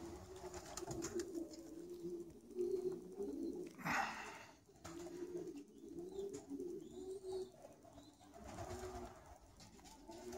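Domestic pigeons cooing in a run of low, repeated coos with short pauses: the courtship cooing of a cock pigeon driving a hen. A short, louder noise breaks in about four seconds in.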